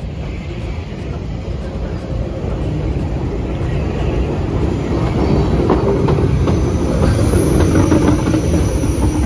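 Bulleid light pacific steam locomotive coming slowly into a station platform, growing louder as it draws level and passes close, with wheels clicking over the rail joints.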